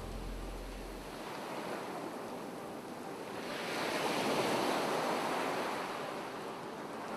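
Ocean surf: a wave swells up, breaking and washing ashore, loudest about four seconds in, then easing off. A low rumble under it stops about a second in.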